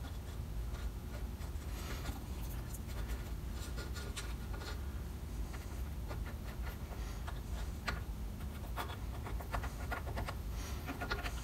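Light clicks and scratchy scraping from hands handling a tube of black RTV silicone sealant against the aluminium gear case housing, over a steady low hum.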